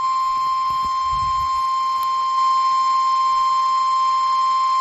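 NOAA Weather Radio warning alarm tone: a single steady, high-pitched tone of about 1050 Hz held without a break, the signal that a weather warning, here a severe thunderstorm warning, is about to be broadcast.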